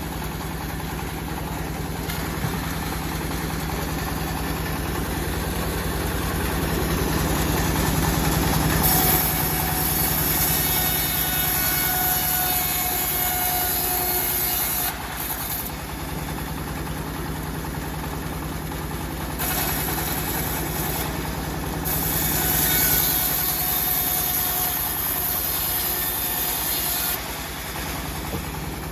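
Homemade engine-driven bandsaw mill sawing a teak log: the engine runs steadily, and a high hiss of the blade cutting comes in about a third of the way in, stops sharply, then returns twice more before stopping shortly before the end.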